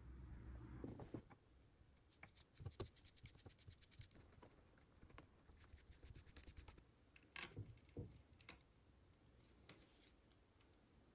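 Faint scratching and clicking of a screwdriver turning the screws of an Odhner arithmometer's bottom cover, with small handling sounds and a few louder knocks about seven to eight seconds in.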